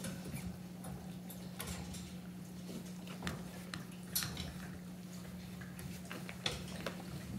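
Labrador puppies playing and scuffling, with irregular light clicks and taps from claws and chewed toys, over a steady low hum.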